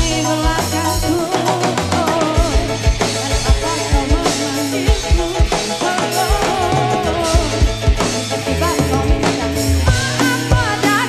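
Live band music: drum kit and hand drums keep a steady beat under electric guitars and bass, with a wavering melody line on top.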